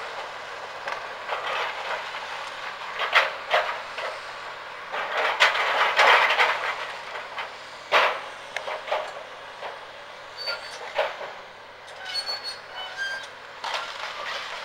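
Excavator demolishing a rendered masonry house: repeated crashing and grinding of breaking walls and falling rubble. The loudest stretch comes about five to six seconds in, and there is a single sharp crash at eight seconds. A few short high squeaks come near the end.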